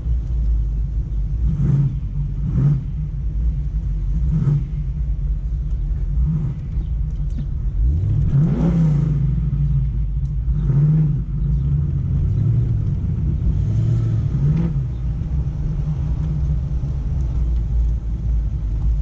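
A 1994 Mustang GT's 5.0 V8 running under way: a steady low rumble that rises briefly in revs several times as the car is driven, with one longer climb in revs about eight seconds in.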